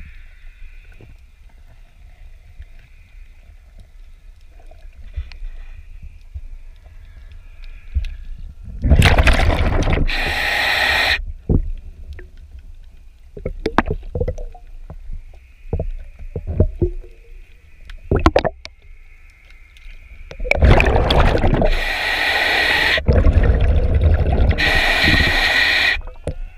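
Heard through an underwater microphone: a diver breathing through an air regulator, two long breaths each with a loud rush of bubbles and regulator hiss. Between them come faint scrapes and clicks of a hand scrub pad working over a fouled boat hull.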